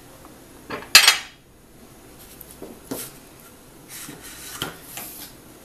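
A spoon clattering and scraping against dishes as food is spooned out of a bowl into small serving bowls. There is one sharp, loud clatter about a second in, then a few lighter clinks and scrapes.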